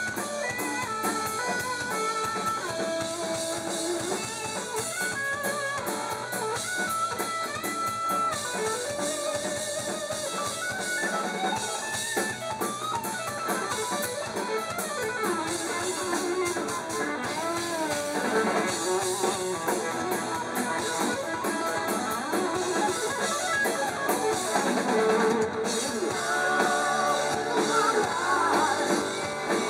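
A live rock trio playing: electric guitar carries a lead line with bent, sliding notes over the drum kit and bass guitar.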